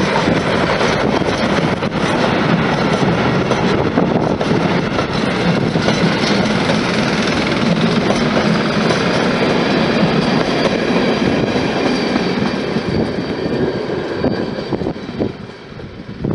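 Steam train passing close by: the 140 C 314 steam locomotive, a 2-8-0, and its coaches roll past in a loud, steady rush of wheel and carriage noise that fades about two seconds before the end as the train draws away.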